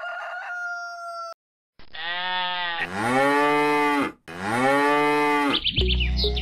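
A cow mooing twice in long, drawn-out moos whose pitch drops at the end of each. A held flute-like note cuts off about a second in, and a quick run of high chirps sounds near the end.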